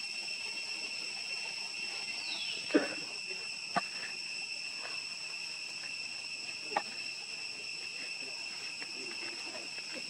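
Steady high-pitched insect chorus with two even tones. A short falling chirp and then a sharp click come nearly three seconds in, with fainter clicks near four and seven seconds.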